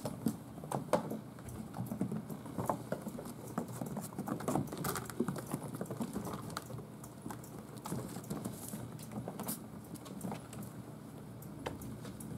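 Six-week-old kittens scampering and tussling on a hardwood floor: an irregular patter of small paws, with light thumps and taps throughout.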